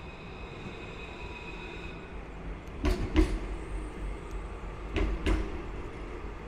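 Tram passing close by with a low rumble and two quick pairs of sharp wheel clacks on the track, about three and five seconds in.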